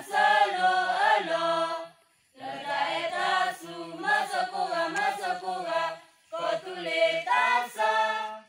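A group of women and men singing a song together in unison, in three phrases with short breaks between them, ending near the end.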